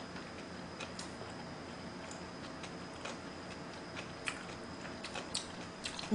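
Quiet chewing of a mouthful of stir-fried ramen noodles, with a few sparse soft clicks, over a faint steady hum.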